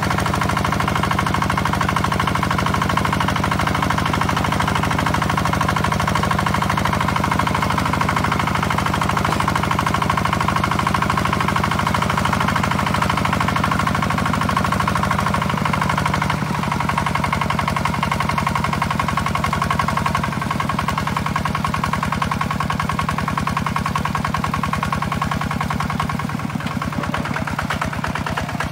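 Kubota two-wheel walking tractor's single-cylinder diesel engine running steadily under load as it ploughs through paddy mud, with a rapid, even knocking beat. About sixteen seconds in its tone shifts slightly and the deepest part of the sound thins.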